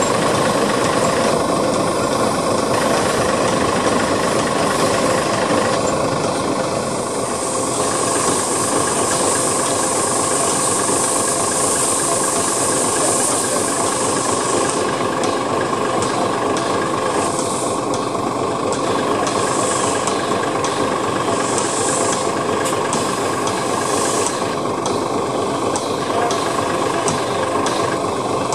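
Narrow-gauge steam locomotive moving off slowly: steam hissing from the open cylinder drain cocks for several seconds, then a run of soft, irregular exhaust beats and clanks, over a steady mechanical hum.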